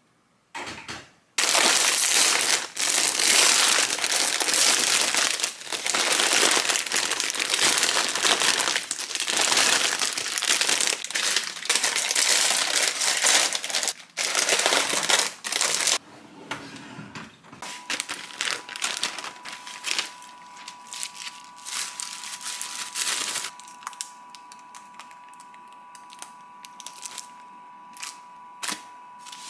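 Plastic food packaging crinkling and rustling loudly as bagged groceries and instant-noodle packets are handled and put away, for about the first fifteen seconds. After that the handling is softer, with scattered clicks and a faint steady high tone underneath.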